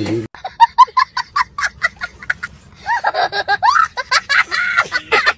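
A child laughing loudly: first a fast run of short ha-ha bursts, then higher, longer squealing laughs from about the middle on.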